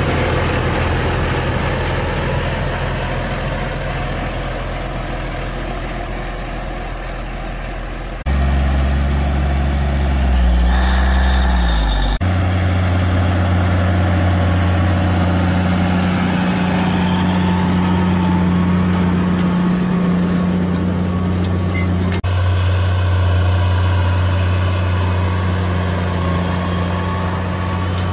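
Cummins K19 diesel engine of a repowered John Deere 8970 tractor, running steadily with a low, even hum. The sound changes abruptly three times, and the pitch dips briefly about ten seconds in.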